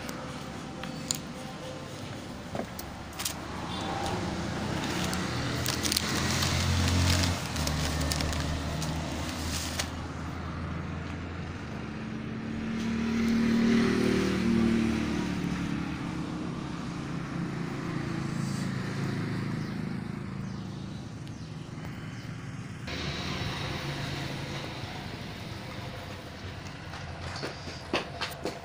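Road traffic going by, with engine noise swelling as vehicles pass about a quarter of the way in and again around halfway. Near the end there is a quick run of clicks.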